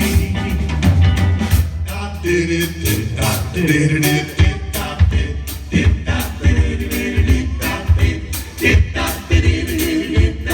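A doo-wop vocal group and backing band playing live: singing with group harmonies over bass and a steady drum beat.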